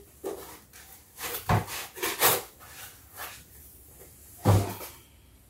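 Cardboard box and packaging being handled while a microphone is taken out: rubbing and scraping of card, with two dull thumps, about a second and a half in and near the end.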